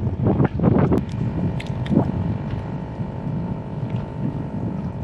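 Wind buffeting the microphone aboard a small fishing boat, a heavy low rumble throughout with a faint steady hum. A few brief muffled voice sounds come in the first second or two.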